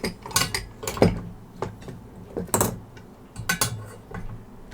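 Repair tools being handled on a workbench: a handful of sharp clicks and clinks about a second apart.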